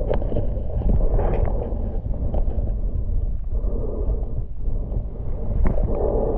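Muffled, steady underwater rumble of water movement picked up by a submerged camera, with a few sharp clicks, the loudest near the end.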